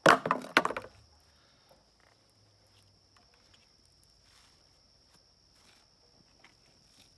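A brief loud clatter in the first second, then a quiet background with a steady high-pitched trill of crickets and a few faint clicks.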